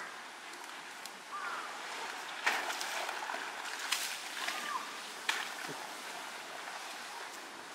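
An Asian elephant scuffing and kicking at wet mud with a forefoot: a few sharp wet scrapes, roughly a second and a half apart, over a steady outdoor hiss.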